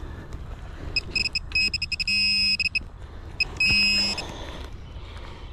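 XP MI-6 pinpointer probing a dig hole: bursts of quick high beeps that twice run into a steady held tone, with a low buzz under it, as the tip comes onto the target. Light scraping of soil and leaves underneath.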